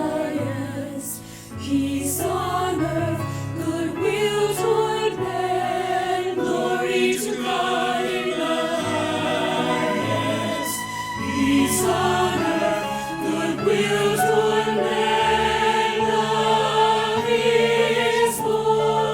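Choir singing a hymn with instrumental accompaniment, held chords over a stepping bass line.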